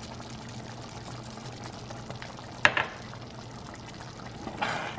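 Thick rice porridge bubbling at a simmer in a stainless steel pot, with one sharp click about two and a half seconds in. Near the end a wooden spoon goes into the pot to stir, giving a short scraping swell.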